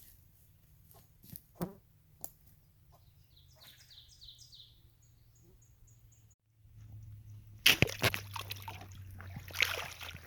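A bird sings a short run of quick, falling high notes over a quiet wooded background with a few soft clicks. About six seconds in, after a brief cut, water sloshes and splashes, with a sharp knock, as of someone wading in a creek.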